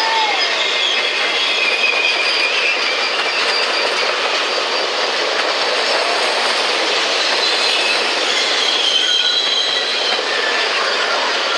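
Train cars rolling past close by: a steady loud rush of wheels on rail, with thin high-pitched wheel squeal coming and going.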